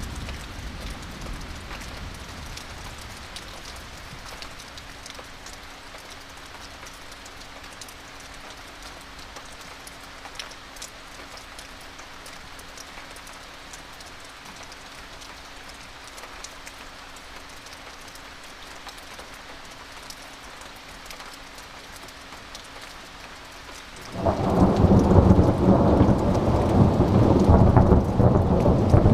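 Steady rain falling, with scattered drop ticks and the tail of a thunder rumble fading at the start. About 24 seconds in, thunder breaks suddenly and loudly and rolls on as a low rumble.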